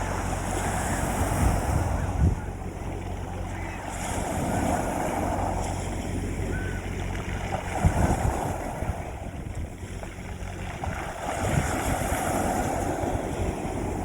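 Sea waves breaking and washing on a beach, rising in four surges a few seconds apart with low thumps at their peaks, over a steady low rumble.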